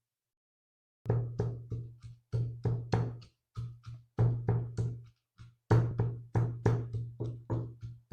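Shallots being pounded with a pestle in a stone mortar, crushing them for their juice: dull knocks with a low ring, about three a second in short runs broken by brief pauses.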